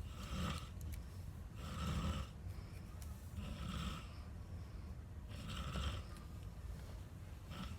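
A sleeping person snoring, a short snore about every two seconds.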